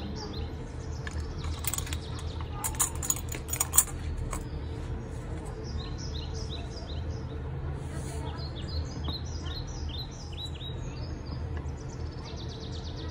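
A small bird chirping in quick runs of short falling notes, over a steady low hum. A cluster of sharp clicks and taps about two to four seconds in is the loudest thing.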